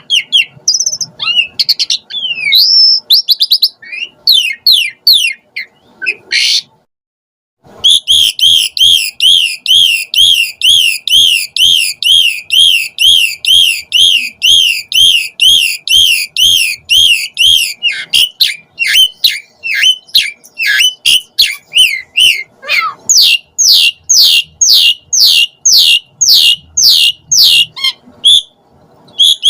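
Asian pied starling (jalak suren) singing loudly. A varied run of whistles and chatter gives way to a brief break about seven seconds in. Then comes a long, fast run of repeated rising-and-falling notes, more mixed calls, and a string of sharp downward-sliding whistles near the end.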